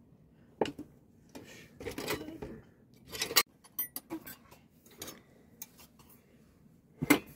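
Metal dishes clinking and knocking as a steel platter of rice and a plate are set down on a floor cloth, in a series of scattered short clinks.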